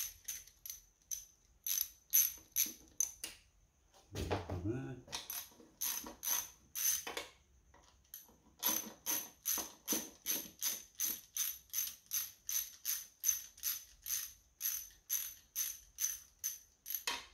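Hand socket ratchet clicking as it backs out sump bolts on a Holden 253 V8, the pawl ticking in quick runs, about three clicks a second through the second half.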